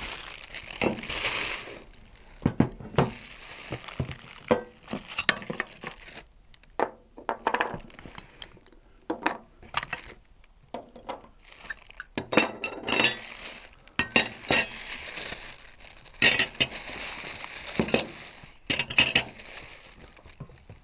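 Metal mobile-base parts and castor wheels being taken out of a cardboard box and set down on a wooden table: repeated clinks and knocks of metal on metal and wood, with plastic wrapping crinkling.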